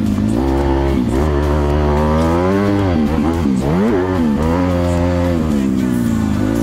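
Motocross dirt bike engine revving hard and easing off in turn, its pitch climbing and falling through the corners, with a deep drop off the throttle a little past halfway before it picks up again.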